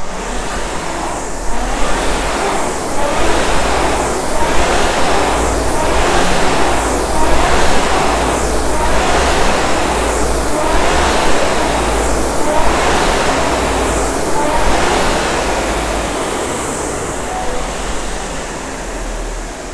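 Concept2 RowErg air-resistance flywheel whooshing in rhythmic surges, one per stroke, about every one and a half seconds, with a low rumble underneath, as the rower drives a fast start to spin the flywheel up. The whoosh fades over the last few seconds as the flywheel spins down.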